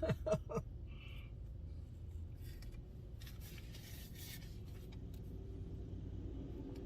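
Faint rubbing and scraping sounds, with a steady low hum underneath.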